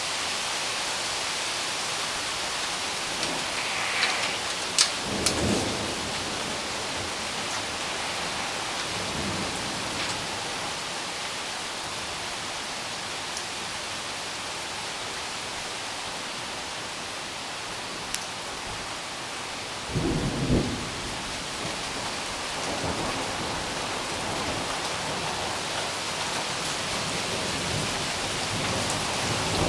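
Thunderstorm: steady rain falling, with thunder about five seconds in and again about twenty seconds in, and a few sharp ticks.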